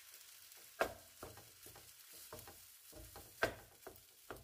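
Wooden spatula knocking and scraping against a nonstick wok while stir-frying rice, over a faint sizzle. Two sharp knocks stand out, about a second in and again about three and a half seconds in, among lighter taps.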